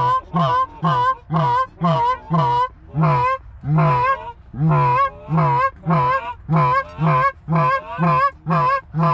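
A hand-blown Canada goose call sounding a fast, loud string of honks, about two a second, each note breaking from low to high. It is calling to geese that are working the decoy spread.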